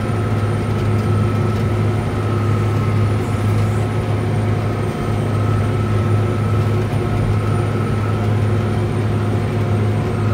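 John Deere 9420 tractor's diesel engine running steadily while pulling the air seeder, heard from inside the cab: an even low drone with a few faint steady whining tones above it.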